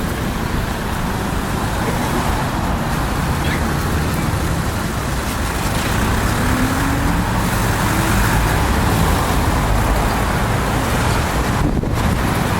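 Strong wind buffeting the microphone in a steady, rumbling rush, mixed with the noise of passing road traffic.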